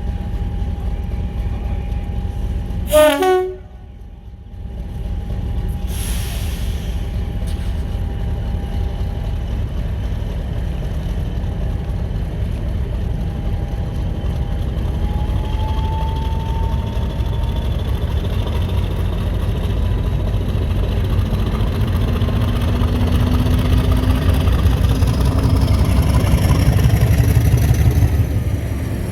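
Heritage diesel locomotive running with a steady low rumble that grows louder, with a faint whine rising slowly in pitch over the second half. About three seconds in there is a short falling run of tones, then a brief drop-out lasting about a second.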